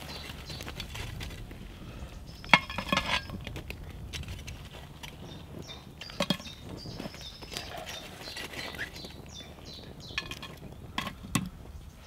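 Metallic clinks and clanks as the lid of a cast iron Dutch oven is lifted and set back on the pot, a few separate sharp knocks with the loudest about two and a half seconds in.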